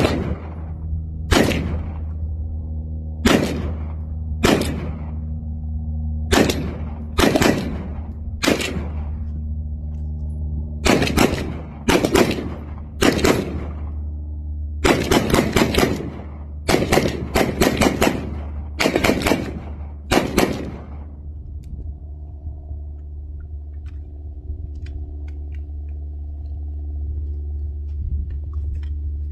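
Some twenty gunshots from a firearm. At first they come about one a second, then in quick strings of several shots, and they stop about three quarters of the way through. A steady low hum runs underneath.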